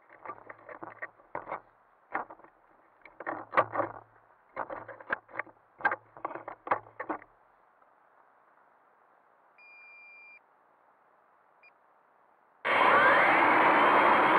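Irregular light clicks and knocks, then a single short beep, then near the end the quadcopter's electric motors and propellers start up with a sudden loud whirr whose pitch rises as they spin up.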